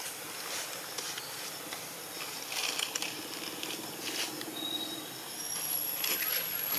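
Steady outdoor background hiss with a few soft rustles, and brief thin high-pitched whistles in the second half, with one very high whistle held for the last second or so.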